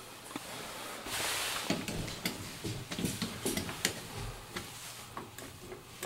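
Quiet scattered clicks and knocks of handling around the dryer, with a short rustle about a second in.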